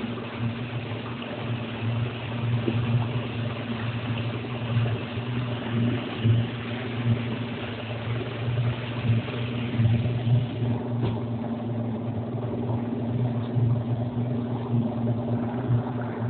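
Motorboat engine running steadily with a low rumble, forced to push the grounded hull through the mud of a shallow river mouth at low tide.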